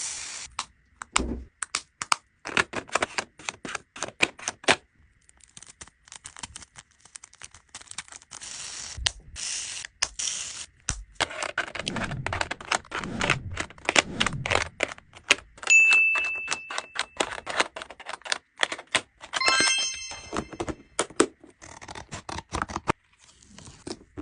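Resin diamond-painting drills being poured and rattled into small plastic storage containers, a fast run of clicks and clatters with short pauses. About two-thirds of the way through there are two brief chime-like tones.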